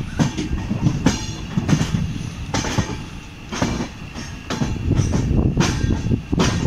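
Passenger train wagons rolling slowly, the wheels knocking over rail joints and points about once a second over a steady low rumble, with brief wheel squeal. The rumble grows louder near the end.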